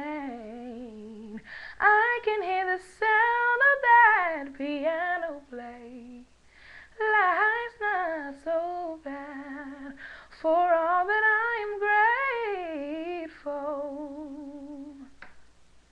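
A girl singing a gospel ballad unaccompanied, in long phrases full of vocal runs and vibrato with short breaths between them. She ends on a held note that fades away near the end.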